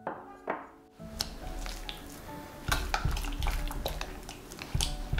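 A spatula mixing beaten egg into choux pastry dough in a glass bowl: wet squishing and slapping, with clicks of the spatula against the glass. It starts about a second in and gets busier and louder from about halfway. Soft music plays underneath.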